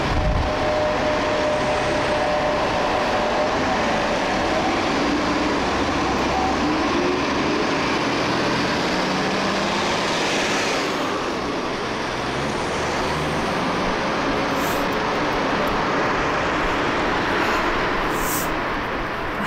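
Street ambience: a steady rush of road traffic, swelling once about ten seconds in as a vehicle passes.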